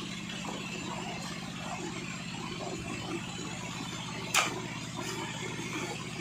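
Steady drone of an engine running, with sand-and-water slurry splashing as it pours from a pump pipe into a dumper truck's bed. One sharp knock about four seconds in.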